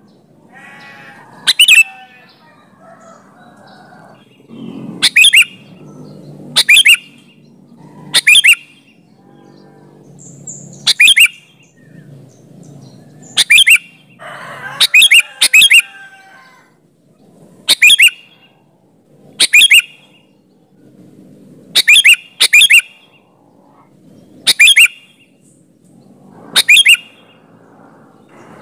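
Sooty-headed bulbul (kutilang) calling: short, sharp, loud chirps repeated every second or two, some in quick pairs, over faint background sounds.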